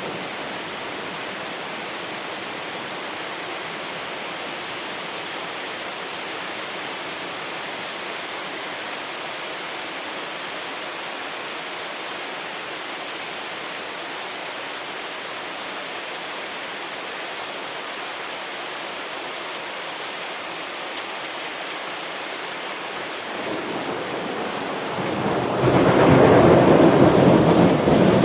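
Steady hiss of heavy rain during a thunderstorm. About 23 seconds in, thunder begins to rumble, and it swells into a loud, deep roll over the last few seconds.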